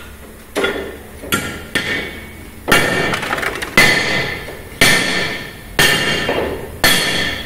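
Hammer blows on metal, repeated about once a second, each strike ringing briefly.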